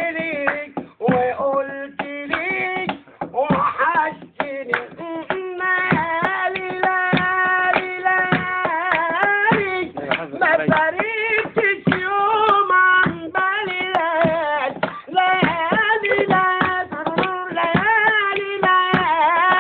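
A man singing unaccompanied, holding long wavering notes with short breaks between phrases, while hands beat time in short sharp strokes.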